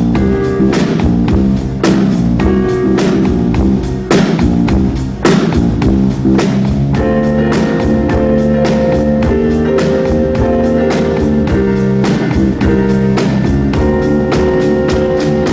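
Live band music: a drum kit playing a steady, even funk groove under sustained keyboard chords.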